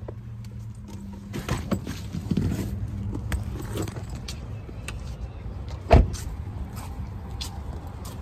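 Someone getting out of a car: handling and rustling noise with small clicks and keys jangling over a low steady hum. A car door shuts with a loud thump about six seconds in.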